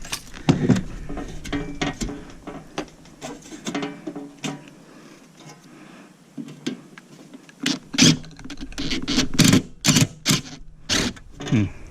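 Hand tools and metal parts clicking and knocking against a metal equipment housing as it is taken apart for scrap. It is sparse and quieter through the middle, then a dense run of sharp knocks and rattles comes in the last few seconds.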